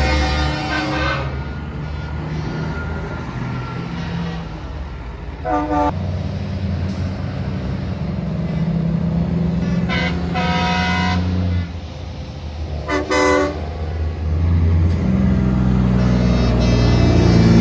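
Semi-truck air horns blown in several blasts of different lengths over the steady low running of diesel engines as the trucks pass. The loudest blast comes near the end.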